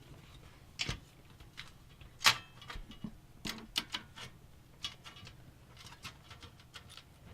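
Scattered clicks and taps of hands handling computer parts and cables inside a PC case, one sharper click about two seconds in.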